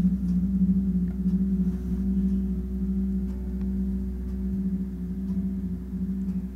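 Large hanging gong played softly with a felt mallet: a deep, steady humming tone that swells and pulses as it is kept going, with a fresh stroke right at the start.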